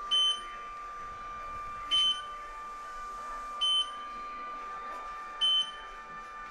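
Motion-warning beeper of a warehouse-store order-picker lift sounding four short high beeps, one about every 1.8 seconds, as the lift raises a worker, over a steady thin tone.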